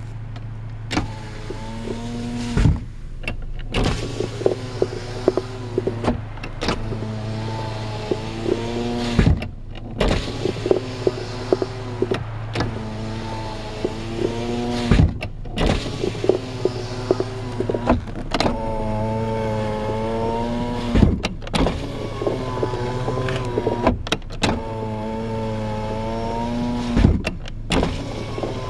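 Toyota FJ Cruiser power window motor driving the glass up and down over and over: a wavering, rumbling whine on each run, ending in a sharp knock as the glass stops, with short pauses between runs. The rumble is a new fault on both windows, which appeared after auto body repair work.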